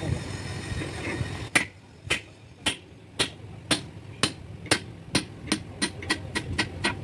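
Hammer blows on metal during engine work. They begin about a second and a half in, first at about two a second, then quicken toward the end.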